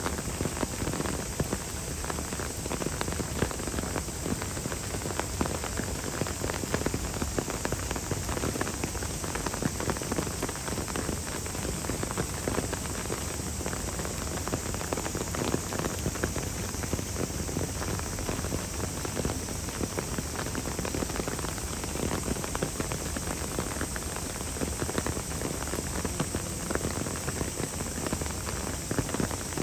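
Steady rain falling, with many small drop hits over an even hiss.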